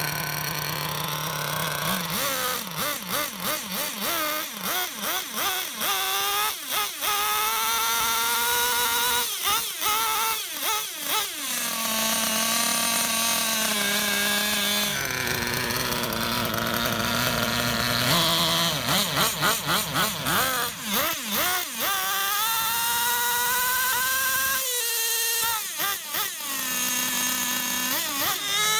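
Serpent Vector NT's .21 nitro engine running with the car up on a stand and its wheels spinning free, revved up and back down over and over, the pitch climbing through each rev, with a steadier, lower-pitched stretch about halfway through. It is being revved to test whether the two-speed gearbox, its clutch just adjusted, will shift into second gear.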